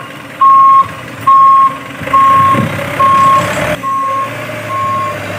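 Remote-control MAN dump truck's reversing beeper sounding a steady single-tone beep about once a second while the tipper bed is raised. A whirring noise swells under the beeps about two seconds in and cuts off suddenly near the end.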